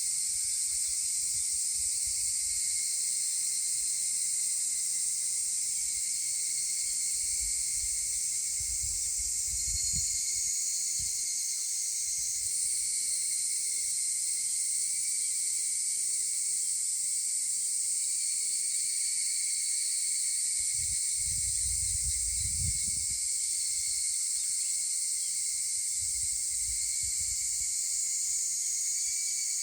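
A dense chorus of higurashi cicadas (Tanna japonensis) makes a steady, unbroken high-pitched shrill. A few short low rumbles come through as well.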